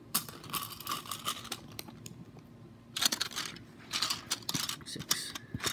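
Grey plastic Lego plates clicking and clattering against each other as a handful is set down and spread out, in several short clusters of clicks.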